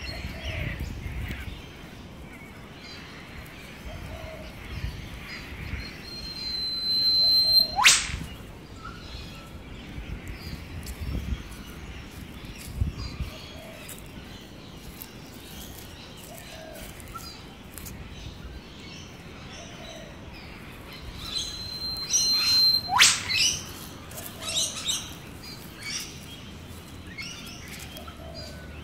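Eastern whipbird calling twice, about fifteen seconds apart: each call is a long held whistle that ends in a sharp whip-crack. Other small birds chirp between the calls.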